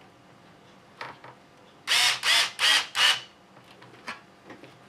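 Small cordless electric screwdriver whirring in four short bursts in quick succession, about two seconds in, driving a screw to mount a shock absorber on an RC truck's plastic chassis.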